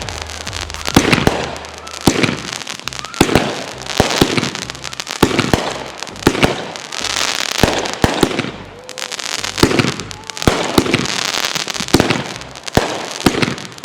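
Fireworks going off in a rapid barrage: repeated sharp bangs, with crackling and hissing between them and a few short whistling glides.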